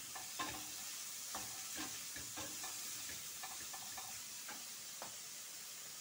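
A wooden spatula stirs shrimp sautéing in oil in a stainless steel skillet, scraping and knocking against the pan about twice a second over a steady sizzle. The stirring stops about five seconds in.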